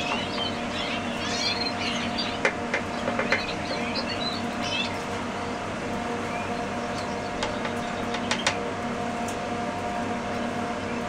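Young Gloster canaries giving short high chirps through roughly the first half, then falling mostly quiet, with a few sharp clicks, over a steady background hum.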